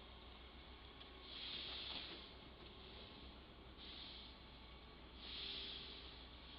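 Faint hiss of a radio scanner feed in a gap between radio transmissions, with three soft swells of hiss: about a second in, near the middle and near the end.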